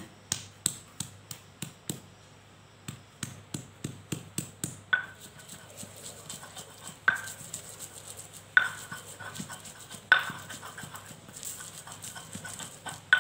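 Stone pestle pounding and grinding shallot, garlic, candlenut and pepper into a paste on a flat stone mortar (Indonesian cobek and ulekan). At first come quick light knocks, about three a second. From about five seconds in there are harder knocks every second and a half or so, with stone scraping on stone between them.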